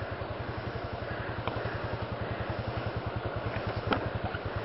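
Single-cylinder motorcycle engine running with a steady, rapid, even pulse, with a sharp knock near the end.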